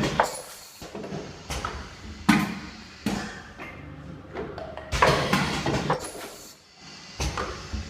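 Automatic turntable ultrasonic tube sealing machine running through its cycle: a series of sharp clunks and knocks at uneven spacing, with short noisy stretches between them.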